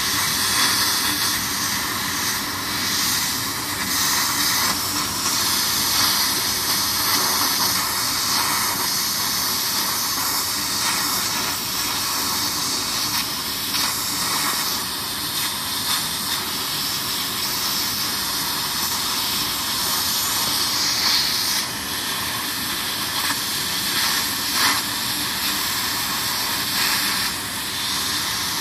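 Laser cutter cutting a pattern out of white card: a steady hiss of air blowing through the cutting head's nozzle, with a few faint ticks.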